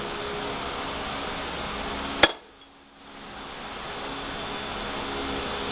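Steady machine hum, like a fan, broken by one sharp click about two seconds in.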